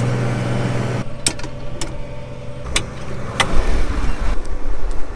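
Case IH 7240 tractor's diesel engine running steadily, heard from inside the cab, its hum dropping away about a second in. Then four sharp clicks and knocks as the cab door is unlatched and pushed open, followed by wind rumbling on the microphone.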